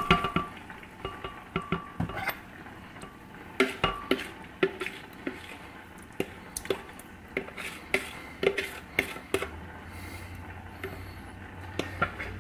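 Spoon scraping and tapping inside a plastic bowl as food is scraped into a glass blender jar: scattered, irregular clicks and knocks. A low steady hum comes in about three-quarters of the way through.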